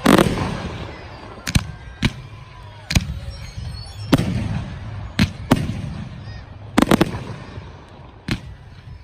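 Fireworks bursting overhead in a string of about ten sharp bangs, some coming in quick pairs and a rapid triple about two-thirds of the way through. The first bang is the loudest and fades with a long rolling tail.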